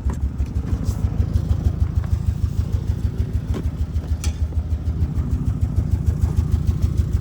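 A 2002 Subaru Legacy's flat-four engine running slowly with a fast, even pulsing beat. The car has a known exhaust leak, and its owner is still unsure whether it is misfiring.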